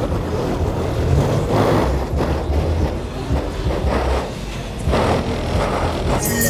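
Cars on a busy street: a heavy, steady low rumble, with louder surges about one and a half, four and five seconds in.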